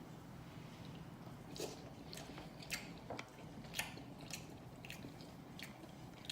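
Close-miked mouth chewing a sushi roll, with sharp wet smacking clicks at irregular intervals.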